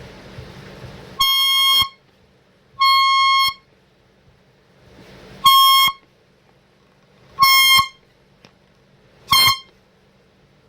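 Cheap handheld canned air horn sounding five short blasts of one shrill pitched honk, the later blasts shorter. A hiss leads into the first and third blasts.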